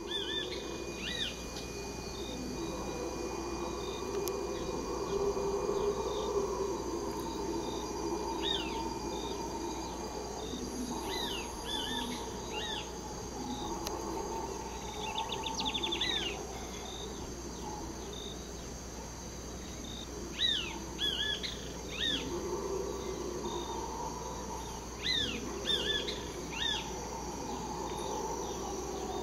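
Distant red howler monkeys roaring in a low drone that swells and fades in long waves. Birds call in clusters of short falling chirps over it, and insects trill steadily.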